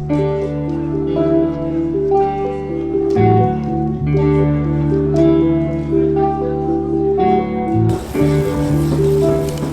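Instrumental music: a melody of short held notes over long sustained bass notes, the bass shifting about three seconds in and again near the end.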